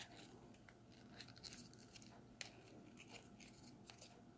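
Very faint rustling and crinkling of folded origami paper worked between the fingers as a flap is opened and tucked inside, with a few small ticks scattered through.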